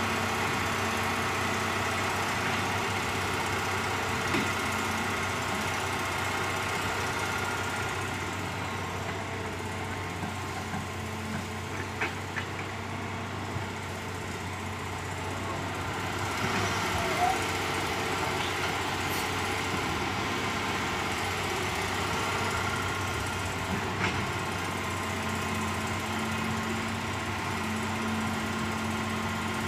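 Diesel engines of a Hitachi crawler excavator and a small dump truck running steadily while the excavator digs and loads soil, with a few short knocks scattered through.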